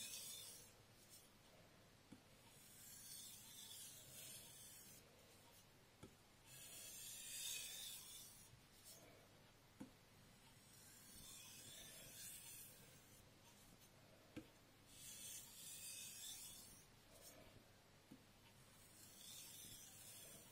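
VG10 nakiri blade drawn across a #4000 Suehiro whetstone in long strokes, about one every four seconds, one stroke to each side in turn: a rasping hiss of steel on fine stone. A faint click sounds between most strokes.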